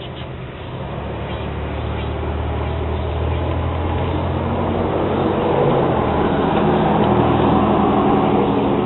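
A motor vehicle's engine running with a steady low hum, growing louder over about six seconds and easing slightly near the end.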